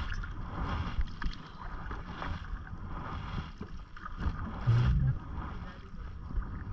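Canoe paddle strokes through the water with low wind rumble on the microphone and scattered light knocks; a brief, loud, low hollow tone about five seconds in.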